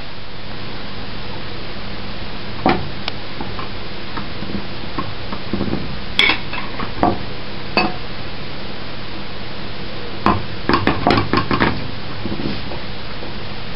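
Scattered clinks and knocks of kitchen utensils against dishes, a knife on a plate and a pan, with a quick flurry of clinks about ten seconds in, over a steady hiss.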